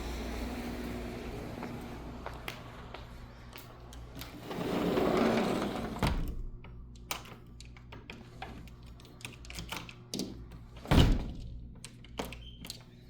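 A sliding door running along its track for about a second and shutting with a click, after which the outdoor noise drops away to a quiet room. Light clicks and knocks follow, and a single loud thump comes about eleven seconds in.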